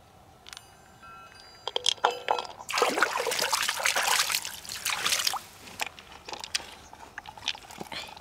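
A few light, hard clinks with a short ringing tone. Then water splashes and sloshes for about two and a half seconds, followed by scattered drips and clinks.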